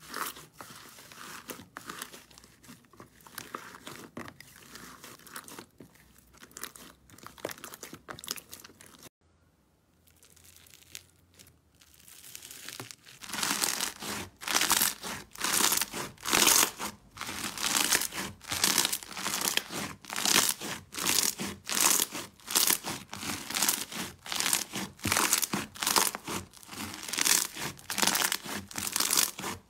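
Hands squeezing and kneading bead-filled slime, making crackling, crunchy popping. It is fairly soft at first and goes quiet for a few seconds a third of the way in. Then it turns loud, with a burst of crackles on each squeeze in a steady rhythm of roughly one or two a second.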